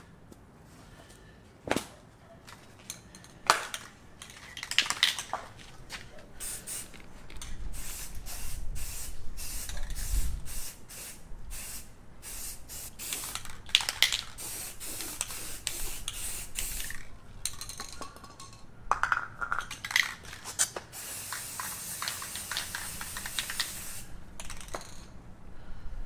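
Aerosol spray paint can spraying in many short hisses, a light coat going on, with one longer steady spray near the end. A couple of sharp knocks in the first few seconds.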